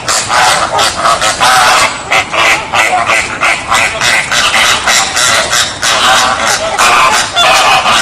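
Flamingos honking: a continuous run of short calls, several a second, overlapping one another without a pause.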